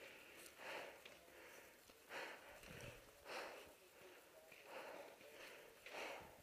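Faint, fast breathing of the paintball player, about one breath every second and a half.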